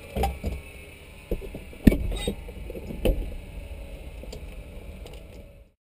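Clicks, knocks and rustles of gear being handled in the cabin of a parked Cessna 152, over a faint steady hum. The sharpest knock comes about two seconds in, and the sound cuts off abruptly near the end.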